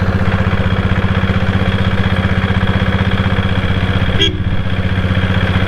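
Royal Enfield Bullet's single-cylinder engine running steadily while the motorcycle is ridden, its firing pulses coming fast and even. There is a single short click about four seconds in.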